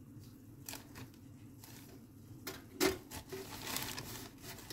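A slice of bread being dropped into a stainless steel toaster slot, with one short knock about three seconds in. A brief scraping rustle of the bread against the slot follows, with a few faint clicks earlier on.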